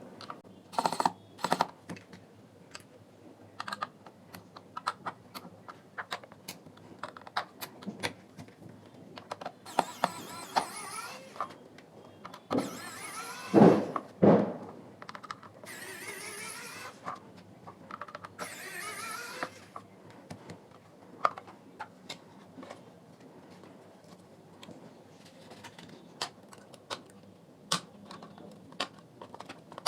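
Hands and a tool working on a small plastic portable speaker while its reflector is removed: scattered light clicks and taps of plastic parts being handled. Several longer scraping sounds come in the middle, the loudest about halfway through.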